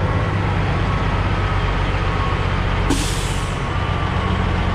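Mustang skid steer's diesel engine running steadily under way, with a short sharp hiss about three seconds in.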